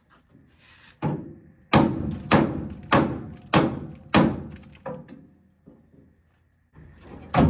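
A hammer striking metal in a run of sharp, ringing blows, about one every 0.6 s, pausing and then starting again near the end. The blows are driving out the rusted bolts that hold down the truck bed.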